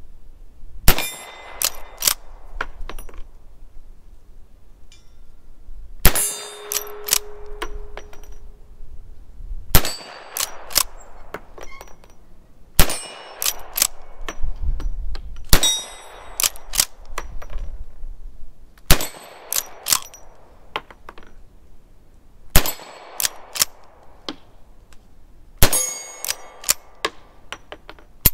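Replica Winchester 1866 lever-action carbine fired eight times, about one shot every three seconds, each shot followed by a few metallic clacks as the lever is worked to eject and chamber the next round.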